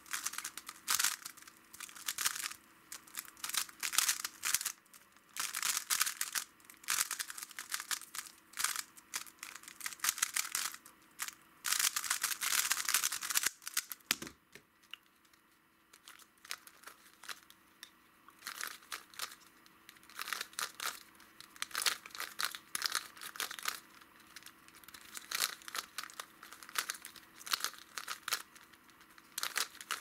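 Plastic speedcubes being turned rapidly by hand, first a 3x3 and then a skewb: fast, irregular runs of clicking and clacking. There is a short lull about halfway through.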